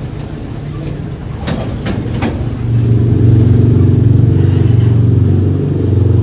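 Motorcycle engine idling steadily, growing louder about three seconds in. A few sharp knocks come about a second and a half in.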